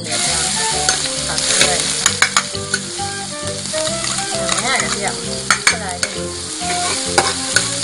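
Minced garlic sizzling in hot oil in a wok, the sizzle starting suddenly as it is poured in. A metal spatula stirs it, with scattered clicks and scrapes against the wok.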